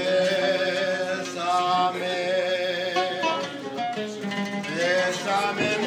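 A man singing a slow song with held, gliding notes, accompanied by a plucked oud.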